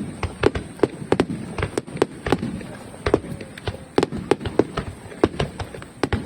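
Fireworks bursting in a rapid, irregular barrage of sharp bangs, about three a second, over a low continuous rumble.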